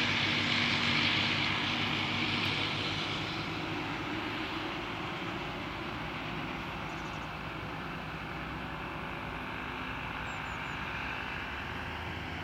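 New Holland FX48 self-propelled forage harvester running at work in standing maize: a low engine drone under the high hiss of its chopper and blower. The sound fades over the first few seconds as the machine moves away, then holds steady.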